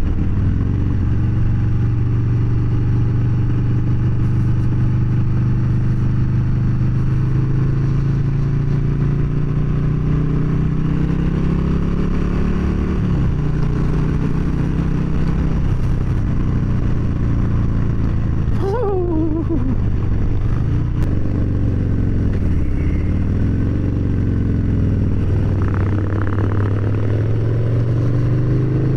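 Harley-Davidson Street Bob's Milwaukee-Eight V-twin heard from the rider's seat while cruising, the engine speed easing off and picking up again a few times. A brief falling tone comes about two-thirds through.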